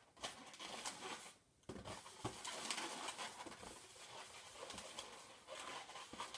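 A long metallic latex modelling balloon (a 260) being twisted and wrapped by hand: faint rubber rubbing and squeaking in many short scrapes, with a brief pause about one and a half seconds in.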